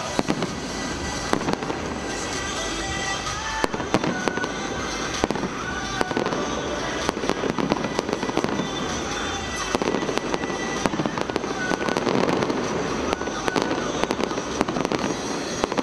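Fireworks display: aerial shells bursting in quick succession, many sharp bangs mixed with crackling.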